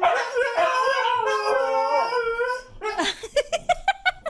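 Several Siberian huskies howling together, their long wavering voices overlapping at different pitches. Near the end the howl breaks into a quick run of short yips, about five a second.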